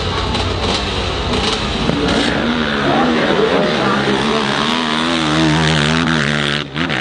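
Dirt-bike engines revving hard and unevenly as the bikes claw up a steep, loose hill-climb slope. The engine note rises and falls, then drops off suddenly near the end.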